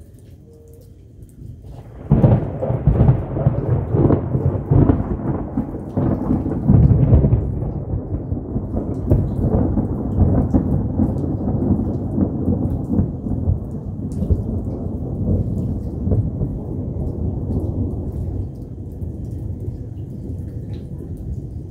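Thunder breaking suddenly about two seconds in and rumbling on, loudest for the next five seconds, then slowly fading, over steady rain.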